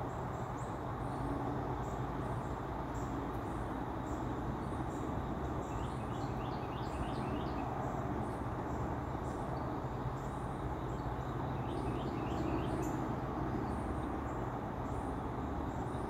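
Outdoor ambience: a steady low mechanical hum with a constant background rush, and small birds chirping over it, with short high chirps repeating about twice a second and two brief runs of quick falling chirps about six and twelve seconds in.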